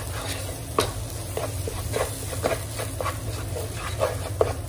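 A wooden spoon scraping and stirring a thick spice masala as it fries in oil in a non-stick pot, in irregular strokes about every half second with a low sizzle. This is the bhuna stage, the paste being roasted in the oil until it comes together.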